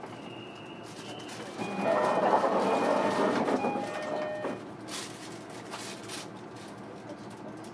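Doors of a JR Kyushu 305 series electric train closing, heard from inside the car: a steady high tone, then about three seconds of loud rushing with faint steady whines, and a few sharp knocks about five seconds in as the doors shut.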